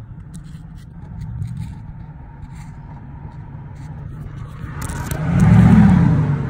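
Handling noise from a phone moved around an engine bay: light scrapes and rubbing over a steady low rumble, which swells loudly for about a second near the end.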